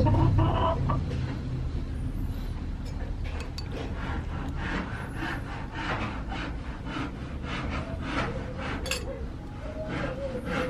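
Crisp lettuce leaves crinkling in the hands and a metal spoon scraping food out of a bowl, in a run of short rustling strokes over a low rumble.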